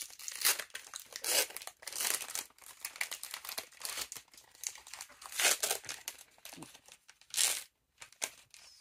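Trading-card booster pack wrappers being torn open and crinkled, in a run of irregular rustles and tears with several louder rips, the last near the end.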